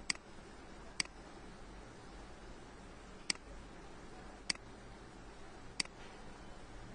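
Computer mouse clicking: five sharp single clicks spread irregularly over about six seconds, over faint steady hiss.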